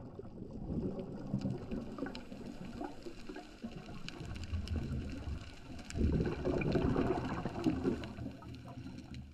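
Underwater sound on the diving camera: a low, gurgling rush of a diver's exhaled bubbles, surging louder for about two seconds near six seconds in, with faint scattered clicks.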